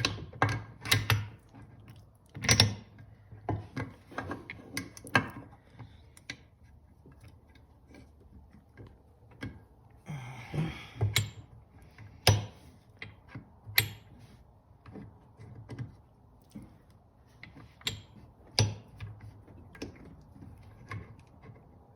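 Irregular metallic clicks, knocks and clinks of transmission gears and shift parts being worked into a Suzuki LT500R engine's crankcase by hand, with a brief scraping about halfway through.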